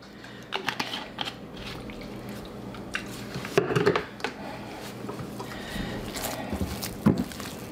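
Silicone spatula stirring and scraping stiff candy dough of butter, cream cheese and powdered sugar in a glass mixing bowl, a squishy, sticky sound, with scattered clicks and knocks of kitchen handling.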